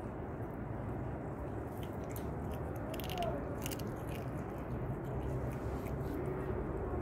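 A tabby cat chewing and crunching dry kibble close up, with a cluster of sharper crunches about three seconds in, over a steady low background hum.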